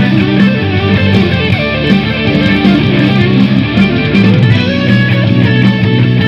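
Electric guitar played through a Lekato Tank G multi-effects unit, a continuous passage of notes to test its tone.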